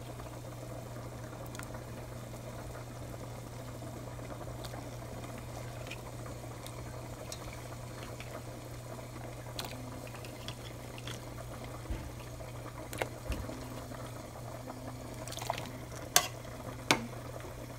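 Water at a rolling boil in a stainless steel pot with cubes of pig blood in it: steady bubbling over a low steady hum, with a few sharp clicks near the end.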